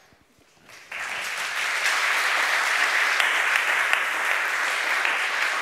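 Audience applauding. The clapping starts suddenly about a second in and holds steady.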